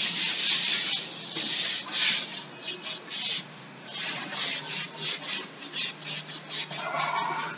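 Cloth duster rubbing chalk off a blackboard: one long wiping stroke about the first second, then a run of shorter strokes that come quicker towards the end.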